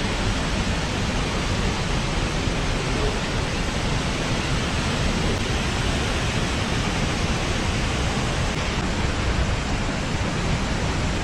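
Meenmutty Waterfalls: a steady, unbroken rush of falling water.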